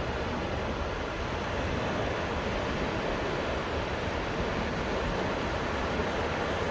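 Gentle sea waves washing steadily onto a sandy beach, with wind rumbling on the microphone.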